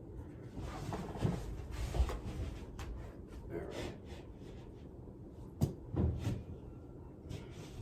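Scattered light knocks, taps and rubbing from tools being handled against a sheet of drywall while it is measured and marked, with a sharp click about five and a half seconds in.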